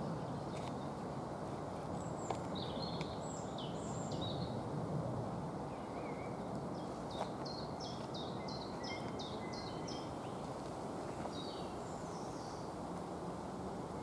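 Woodland songbirds singing over a steady low rushing background noise, with a few faint clicks. About seven seconds in, one bird sings a quick run of about seven high descending notes.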